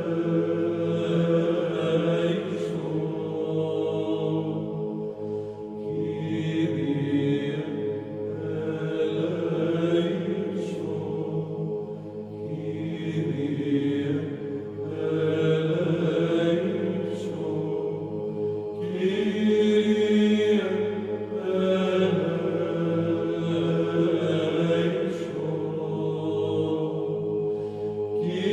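Orthodox liturgical chant: voices singing slow, long-held melodic lines over a steady low drone, with the words of the text audible as soft sibilant consonants.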